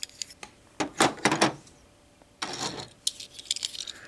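Small plastic Blokees Constructicon toy figures being handled and adjusted: a few sharp plastic clicks and knocks about a second in, a short scraping rustle around two and a half seconds, then a run of lighter clicks.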